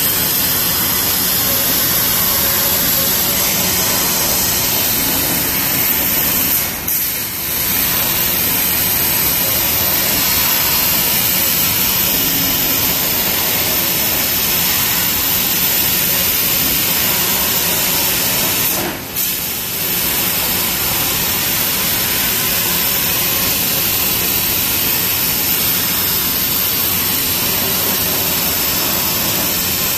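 Industrial laser cutter cutting 2 mm aluminium sheet: a steady, loud hiss from the cutting head, dipping briefly twice, about 7 and 19 seconds in.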